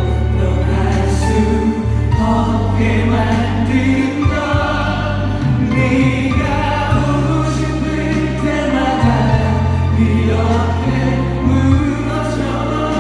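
A song: singing over instrumental backing, with long held bass notes changing every second or two.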